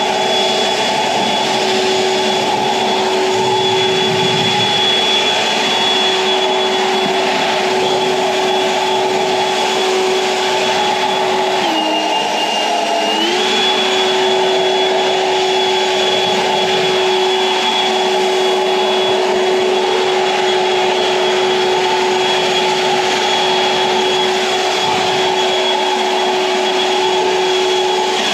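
EGO LB7650 56V cordless leaf blower running steadily: rushing air with a steady fan whine. The pitch dips briefly about twelve seconds in as the speed eases off, then comes back up.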